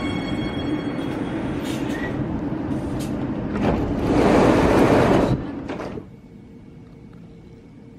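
Warsaw metro train standing at the platform with its doors open, its equipment running steadily, then a loud hiss of released air for about a second and a half. About six seconds in this gives way to the quiet, low hum of an empty underground station.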